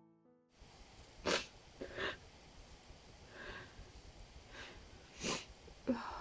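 A woman crying: about half a dozen short sobbing breaths and sniffs, the sharpest about a second in and again near the end.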